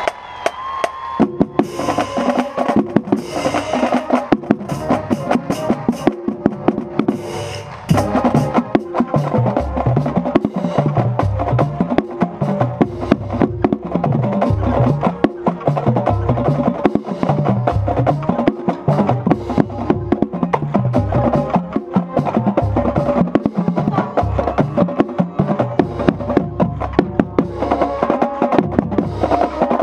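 Marching band drumline playing a cadence, heard from right on a bass drum: snare strokes and rim clicks over a steady beat, with the tuned bass drums running down and back up in regular sweeps. It starts about a second in and fills out from about eight seconds in.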